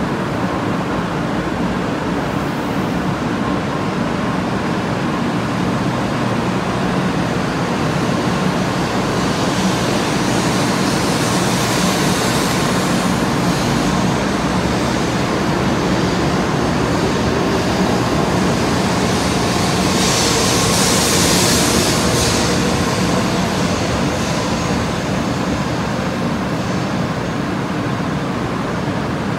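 N700 series Shinkansen pulling out of the platform and running past, a steady rumble and rush of train noise. A hiss swells about ten seconds in and again, louder, about twenty seconds in as the cars go by.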